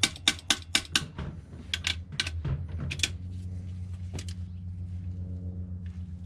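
Ratchet wrench clicking in short, irregular runs on the oil pan bolts, then one more click a little after the middle, over a steady low hum.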